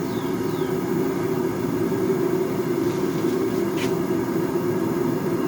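Steady low roar of a running forge, holding level, with one brief click about two-thirds of the way through.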